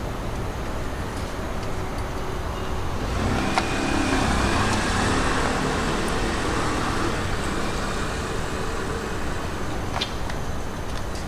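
A vehicle passes by, getting louder about three seconds in and fading away after about nine seconds, over steady background traffic noise.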